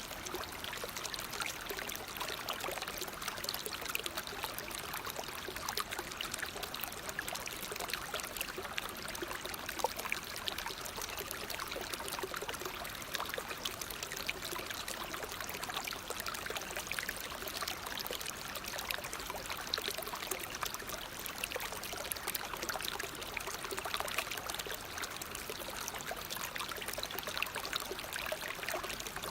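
Waterfall: water falling and splashing in a steady rush, with fine splashes throughout.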